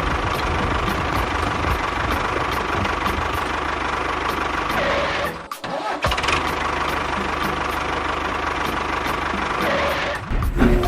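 An engine running steadily, with a brief drop-out about five and a half seconds in before it carries on.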